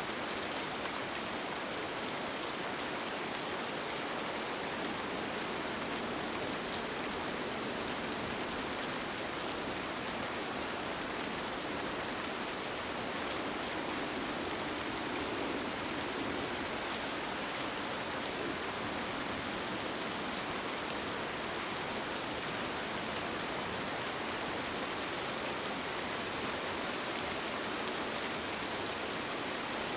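Steady rain falling on a tent, an even hiss with a few scattered sharp drop ticks.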